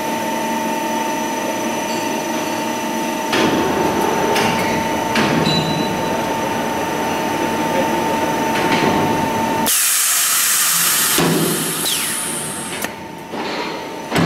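Storage-shelf beam roll forming machine running, a steady multi-tone hum with the steel profile rattling and knocking through the rollers, louder from about three seconds in. About ten seconds in the hum stops and a loud hiss follows for a second or two, then a few knocks.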